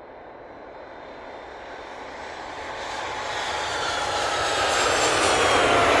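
Boeing 747 jet airliner coming in to land, its four turbofan engines growing steadily louder as it approaches. From about halfway in, a whining engine tone slides slowly down in pitch over the rushing noise.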